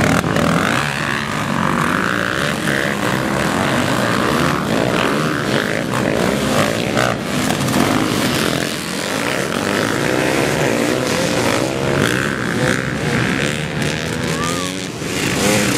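Several dirt bike engines revving up and down as the bikes race by.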